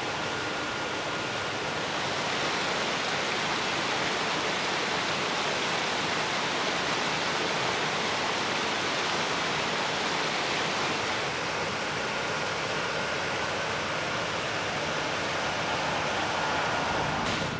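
Rushing water: the discharge from a small hydropower plant's Francis turbines pouring out of the tailrace and tumbling over rocks into the river. It is a steady hiss that grows a little louder about two seconds in.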